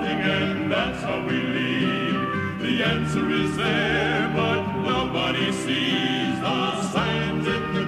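Male gospel quartet of two tenors, baritone and bass singing in close harmony on a 1972 recording, holding long notes.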